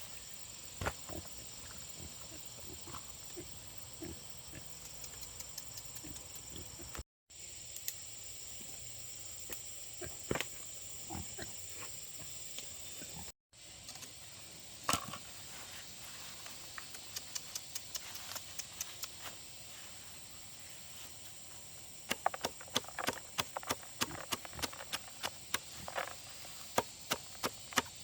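A steady high-pitched hum with scattered knocks, then, about three quarters of the way in, a quick regular series of sharp strikes, about two a second.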